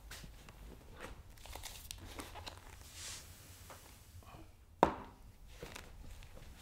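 Soft rustling and light handling clicks in a small room, with one sharp knock or click a little under five seconds in.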